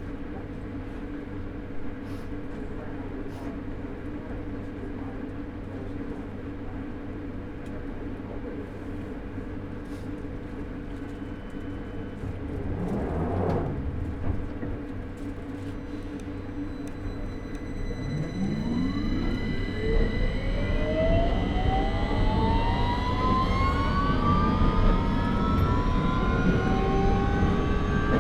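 London Underground 2009 Stock train standing with a steady electrical hum, a brief louder swell about halfway through, then pulling away: from about two-thirds of the way in, the traction motors' whine rises in several pitches at once and grows louder as the train accelerates.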